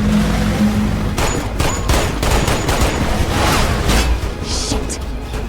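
Gunfire from a film action scene: a rapid, irregular string of sharp shots from about a second in, easing off near the end, over the film's music.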